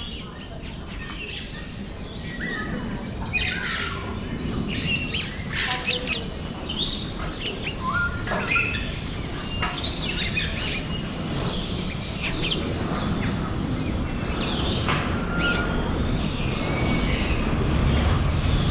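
Many birds chirping and whistling at once, short sweeping calls overlapping, over a steady low background rumble.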